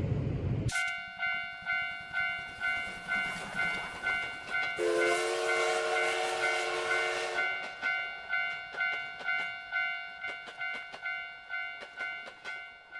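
A train rumbling past stops abruptly, giving way to a Japanese railroad crossing's electronic alarm bell ringing a steady clanging rhythm that fades out near the end. About five seconds in, a train horn sounds for about two and a half seconds over the bell.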